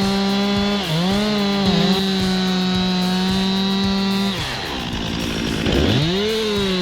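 Two-stroke chainsaw running at full throttle while cutting wood, its pitch sagging briefly twice under load. About four and a half seconds in the revs fall away, then the engine winds back up to full speed near the end.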